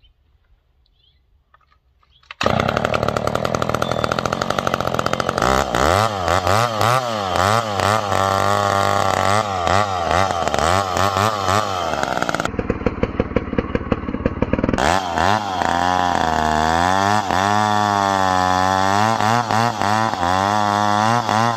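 McCulloch 1010 two-stroke chainsaw with a 20-inch bar and .325 chisel chain, coming on loud about two seconds in and revving up and down. Later it cuts into a log, its pitch dipping and recovering under the load of the cut.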